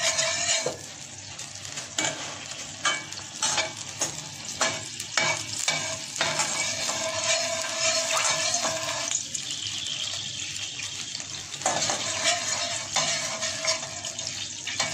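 Cardamom pods frying in hot butter oil (ghee) in a steel pot: a steady sizzle, with a metal spoon stirring them and clicking against the pot every second or so. The pods are being roasted in the fat.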